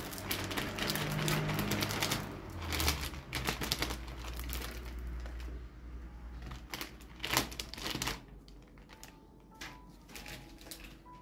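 Dry rice grains poured into a jar: a dense, rapid rattle of grains, thinning to scattered clicks and knocks in the second half.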